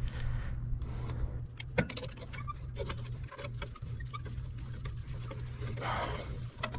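Scattered metallic clicks and clinks as drum-brake shoe hardware and a steel C-clamp are handled and set against the brake backing plate, with a brief scrape near the end. A steady low hum runs underneath.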